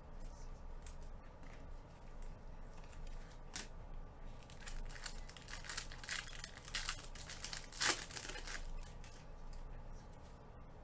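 Foil wrapper of a trading-card pack crinkling as it is handled and torn open. The crinkling is thickest through the middle, with one loud rip about eight seconds in.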